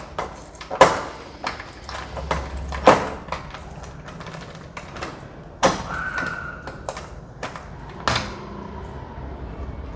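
Keys jangling on a ring while a door lock is worked with a key, with a few sharp clicks of the lock mechanism spaced a couple of seconds apart.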